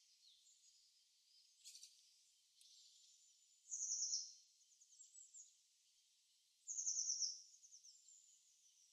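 Recorded winter birdsong ambience: a songbird sings two short, rapid trills that fall slightly in pitch, about four and seven seconds in, with fainter chirps in between.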